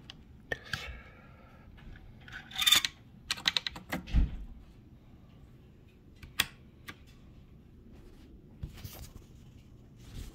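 Small metal clicks and clacks from hands working a Silver Eagle shotgun's receiver and action: a scrape and a quick run of clicks about three seconds in, a dull knock just after, then two single sharp clicks a little later.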